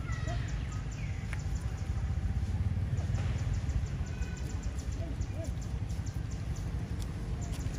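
Outdoor ambience: a steady low rumble with a few faint, short squeaks and chirps and light scattered clicking over it.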